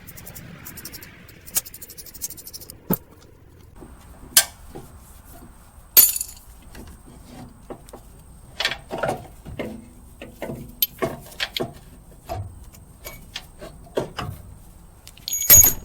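Hand tools and metal parts clinking and knocking irregularly during mechanical work on the truck's A/C compressor mounting. There is a louder clank about six seconds in and another just before the end.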